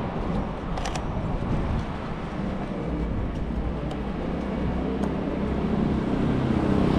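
City street traffic noise, with a motor vehicle passing close and growing louder toward the end.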